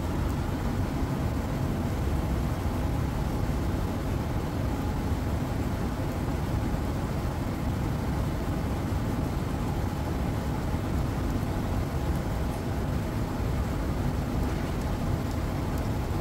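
Steady low rumbling noise, even throughout, with no separate knocks or events.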